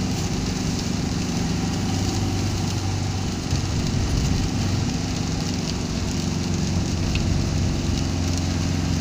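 Steady engine hum and tyre noise heard from inside a moving car on a wet road, with rain hissing and pattering on the car and the windscreen.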